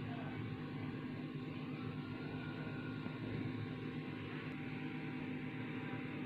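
Steady low hum with a faint hiss, unchanging throughout, with no distinct knocks or clicks.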